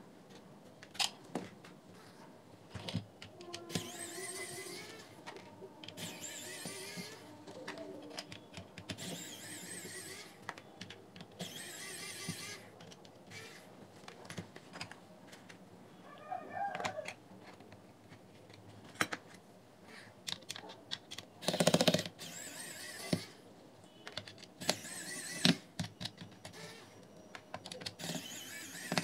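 Screws being taken out of a JBL Flip 3 speaker's plastic housing: scattered clicks and taps of the screwdriver and plastic parts, with several short whirring runs of a small electric screwdriver. One louder clatter comes a little past the middle.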